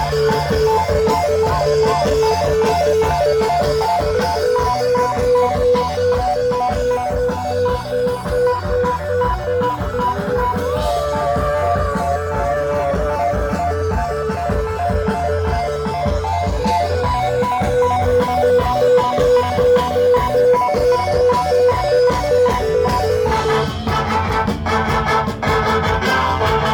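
Live rock band playing an instrumental passage with no vocals: an electric guitar repeating a short pulsing riff over bass guitar and drum kit. About three-quarters of the way through, the part gets busier, with fast, even repeated notes.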